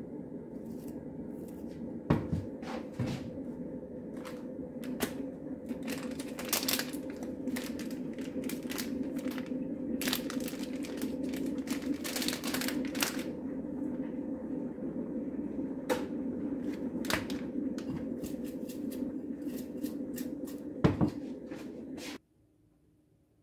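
Kitchen handling sounds: a ceramic bowl set on a wooden board, then black pepper shaken from a paper packet, heard as scattered clicks and rustles over a steady low hum. Everything cuts off suddenly near the end.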